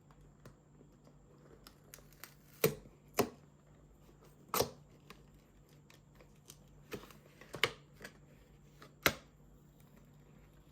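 Chocolate box packaging being handled and opened: a scattered series of sharp clicks and taps, about a dozen, the loudest five spread through the middle of the stretch.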